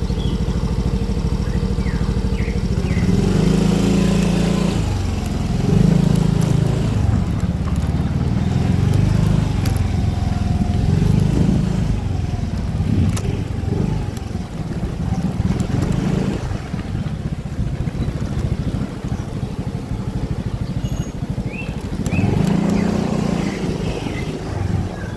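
Motorcycle engine idling briefly, then pulling away and accelerating in several surges while riding.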